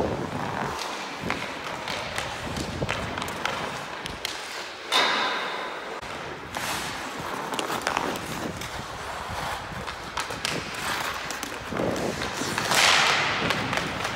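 Ice hockey skates scraping and carving on rink ice while a stick taps and pushes a puck, with scattered knocks. About five seconds in comes a sharp knock with a brief ringing, and near the end a loud hissing scrape of blades across the ice.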